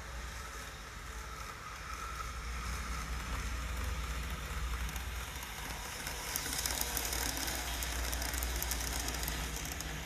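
N-scale model train running along the track: a steady motor hum and rushing wheel noise that grows louder as it approaches. From about six seconds in, a rapid crackly ticking of wheels over the rail joints joins it.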